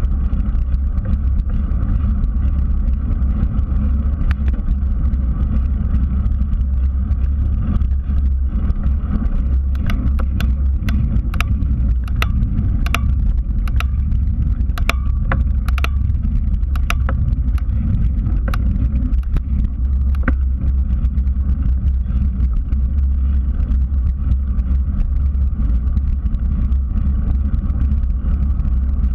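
Bicycle rolling along an asphalt trail, heard as a steady low rumble of wind buffeting and tyre-on-pavement noise on a handlebar-mounted GoPro. Between about ten and twenty seconds in, a string of sharp, irregular clicks and rattles sounds over the rumble.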